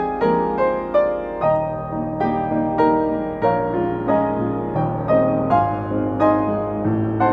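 Upright piano being played solo: a melody of evenly paced notes, with deeper bass notes joining about a second and a half in.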